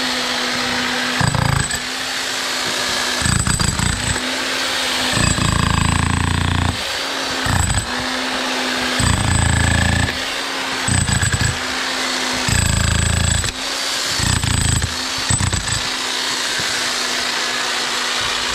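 Electric demolition hammer running with a chisel bit, breaking out a cinderblock. Its steady motor hum keeps going, and every second or two come stretches of heavier rattling blows as the chisel bites into the concrete block.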